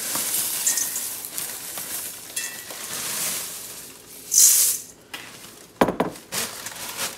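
Dry cornflakes poured from a crinkling plastic bag into a glass measuring cup and a stainless steel bowl: a continuous crackly rustle, with a louder rustle of the bag about four seconds in and a few sharp clicks near the end.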